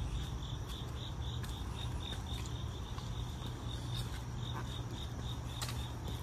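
Crickets chirping steadily, about four chirps a second, over a low steady rumble.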